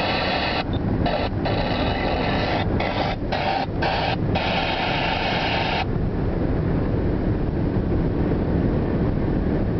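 Steady road and engine rumble inside a car cruising on the autobahn. Car radio music plays over it, dropping out briefly several times, and stops about six seconds in, leaving only the road noise.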